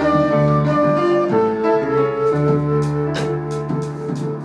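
Live jazz combo playing: flute over upright bass, piano and drums, with a few cymbal strokes in the second half.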